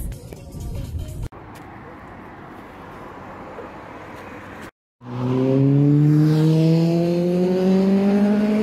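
Nissan Silvia S15's engine pulling away, its pitch rising steadily and smoothly as the car accelerates; this starts loud about five seconds in after a brief cut. Before it, a quieter steady low rumble.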